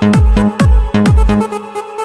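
Electronic dance music with a heavy kick drum beating about twice a second; the kick drops out about one and a half seconds in, leaving synth notes and lighter percussion.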